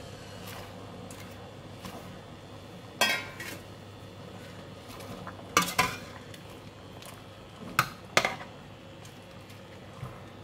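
A metal spoon clinking against the side of a stainless steel pot as it pushes vegetables down into boiling water. There are five sharp clinks: one, then two close pairs. A steady low hiss runs underneath.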